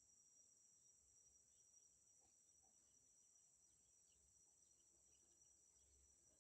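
Faint, steady high-pitched drone of insects such as crickets, with scattered faint short chirps.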